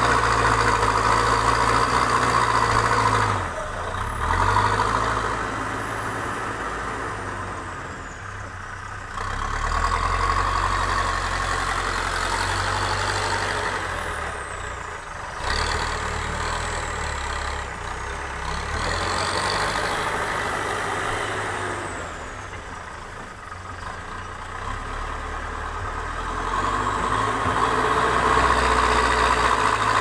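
Terex TLB 740S backhoe loader's diesel engine working as the machine pushes soil and loads it into a tipper truck, its revs rising and falling several times with the load.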